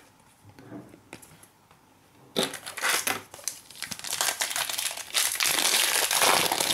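Foil wrapper of a Prizm basketball card pack crinkling as it is handled and torn open. It starts suddenly about two seconds in and grows louder near the end.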